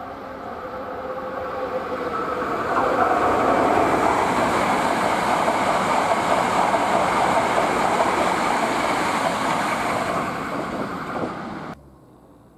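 Electric train passing close by, growing louder over the first few seconds, then cut off abruptly near the end.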